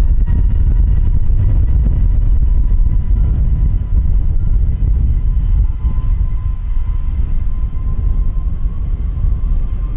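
Jet airliner engines running at high power, a heavy low rumble with a faint steady whine above it that rises slightly near the end.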